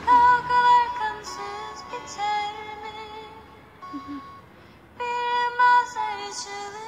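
Music with a high singing voice holding long, drawn-out notes, dropping quieter for a moment in the middle.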